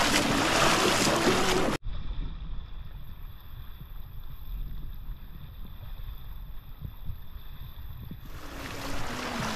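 Rushing, splashing water around legs wading through a river current, with a short stepped tune over it. About two seconds in it cuts off abruptly to a much quieter low rumble with a thin steady high whine, and the loud splashing returns near the end.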